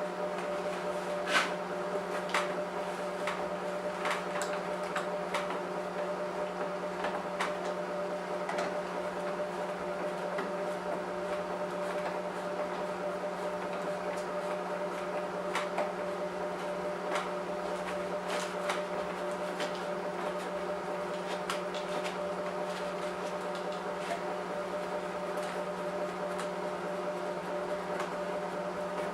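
Scattered light clicks and taps of a hex key and fingers on a plastic headlight housing as the headlight adjusters are unscrewed, over a steady mechanical hum.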